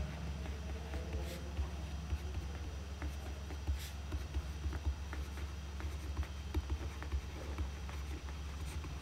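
Faint taps and scratches of a stylus writing on a screen, over a steady low hum.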